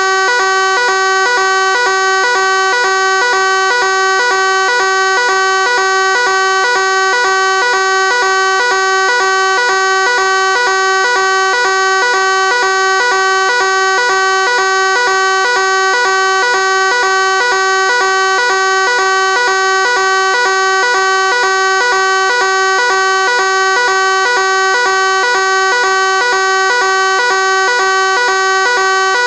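Fire alarm sounding continuously: one loud, steady-pitched tone with many overtones, unchanging in level.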